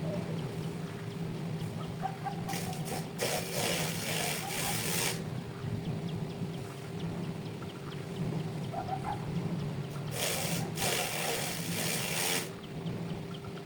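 A motor runs steadily with a low, even hum. Two bursts of rushing, hissing noise, each about two seconds long, come a few seconds in and again near the end.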